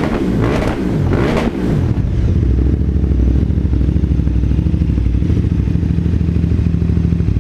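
KTM 990 Adventure's V-twin engine breathing through FMF Q4 slip-on mufflers: revved twice in quick throttle blips, then settling to a steady, evenly pulsing idle about two seconds in.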